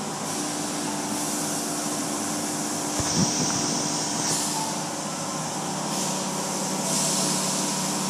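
Automatic car wash running: water jets spraying against the bay's window and the car over a steady machinery hum, the spray hiss swelling twice. A brief knock about three seconds in.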